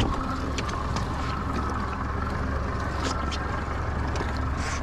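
A boat engine running steadily with a low hum, with a few short ticks and knocks on top.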